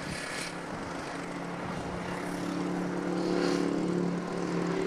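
An aircraft's engine drone, steady in pitch and growing gradually louder as it approaches.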